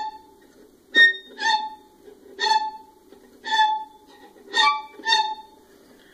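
Viola bowed behind the bridge, giving short creaky squeaks roughly two a second, an effect imitating rusty wagon wheels. The squeaks stop shortly before the end.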